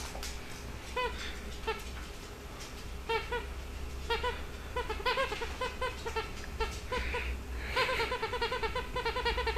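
Rubber squeaky toy squeaking over and over as it is pressed, short identical squeaks, scattered at first and then in quick runs near the end.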